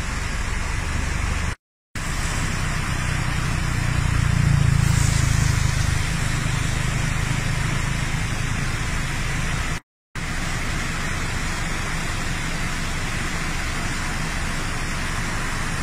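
Steady rush of fast-flowing flash-flood water, a broad even hiss, with a low rumble swelling louder about four to six seconds in. The sound cuts out completely for a moment twice.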